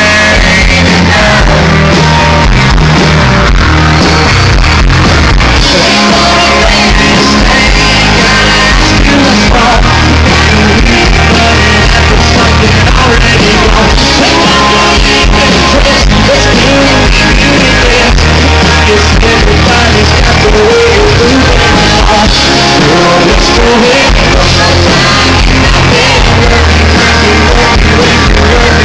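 Loud live country band performance with a male lead singer, amplified music with a steady beat from full band and vocals.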